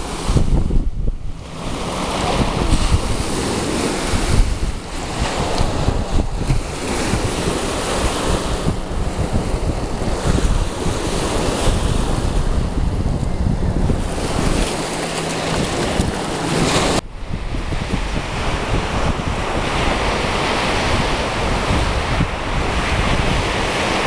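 Small lake waves washing onto a sandy shore, mixed with wind buffeting the microphone as a steady rushing noise, with a sudden break partway through.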